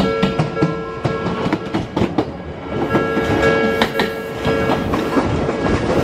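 An Odakyu commuter train passing over a level crossing, its wheels clacking repeatedly over rail joints, with steady tones sounding under the clatter.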